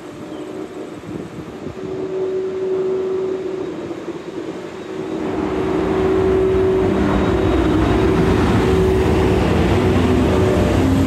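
EF81 electric locomotive hauling E231 series commuter cars rolling in along the platform and passing close. The rumble of its wheels on the rails swells about five seconds in and stays loud, over a steady hum.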